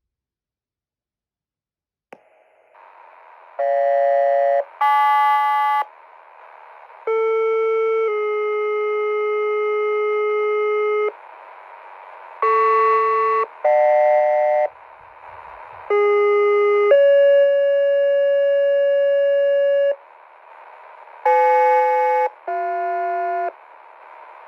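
Sequential two-tone paging tones from a Zetron Model 25 encoder, sent over a GMRS radio channel. A tone of about a second followed by a steady three-second tone (Motorola Quik-Call II format) alternates with pairs of short one-second tones, and radio hiss sits between the tones. These are the tones that set off EMS and QRS pagers and sirens; the channel opens with a click about two seconds in.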